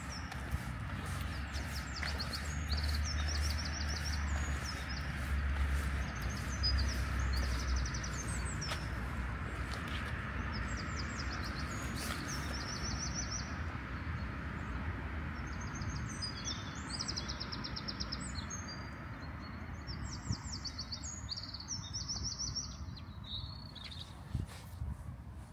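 Small songbirds singing: short phrases of fast repeated high notes, one after another all through, over a steady low background rumble that eases after about eight seconds.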